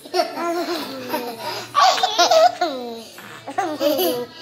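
Baby laughing, in three short bouts.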